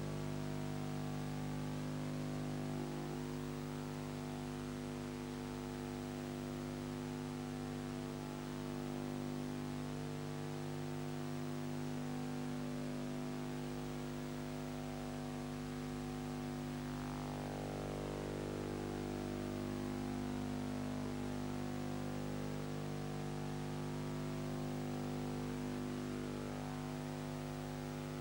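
Steady hum of several held tones over a faint hiss, with no other events.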